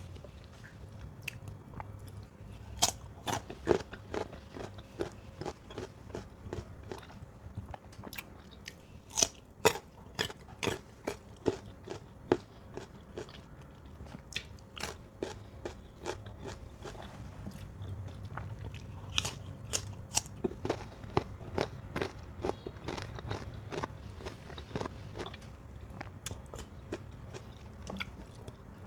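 A person biting into and chewing crisp mango, with sharp, irregular crunches all through.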